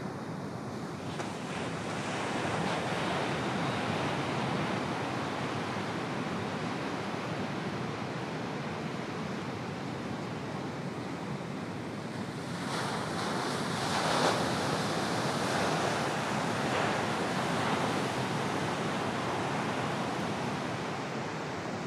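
Ocean surf: heavy waves breaking and washing through in a continuous rush, swelling louder about two seconds in and again from about thirteen to eighteen seconds.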